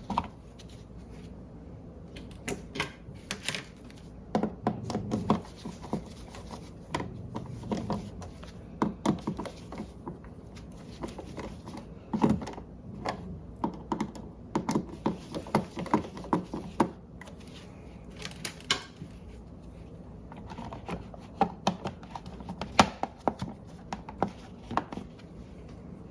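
Irregular clicks, taps and light knocks of a screwdriver and plastic switch plate, coming in clusters with short gaps, as a wall light switch is slid over in its box to line up with the cover plate.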